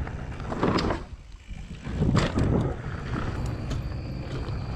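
Wind rushing over a helmet or body camera's microphone with trail rumble from a downhill mountain bike being ridden, swelling twice and easing briefly in between.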